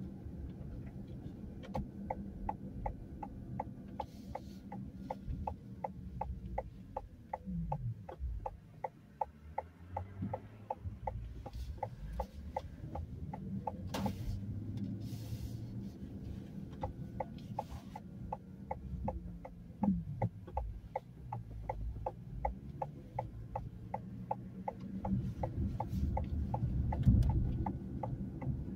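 Car driving heard from inside the cabin: steady low engine and road rumble whose pitch rises and falls a few times as the car slows and speeds up. A light, regular ticking about three times a second runs through it.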